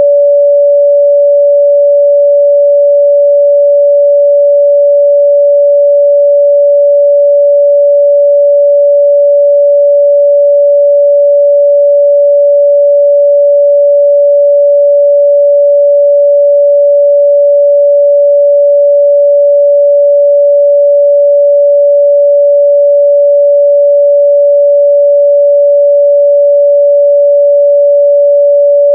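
Pure 574 Hz sine-wave test tone, one steady unchanging pitch.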